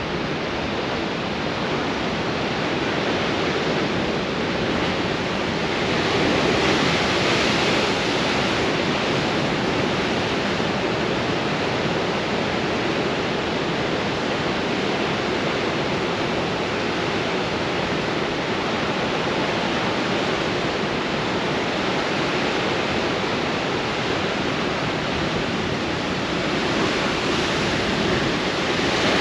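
Heavy ocean surf crashing and churning against rocks with a steady rush of white water and wind. The roar swells about six seconds in and again near the end as bigger waves break.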